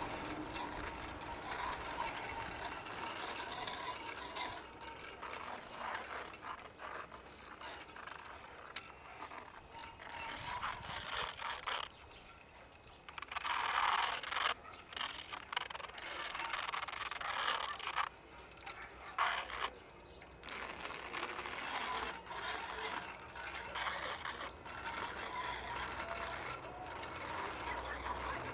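Bicycle converted to ride on a railway rail, rolling along the track: a continuous metallic rattle and ticking of its drivetrain and rail-guide wheels on the steel rail, with irregular louder clusters of clatter and a few brief lulls.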